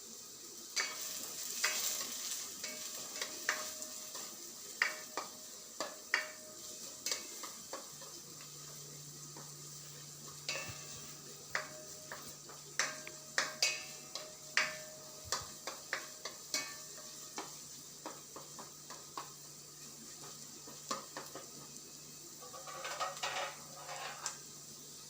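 Chopped onions sizzling as they fry in hot oil in a pan, stirred with a spoon that clicks and scrapes against the pan over and over. A low steady hum comes in about a third of the way through.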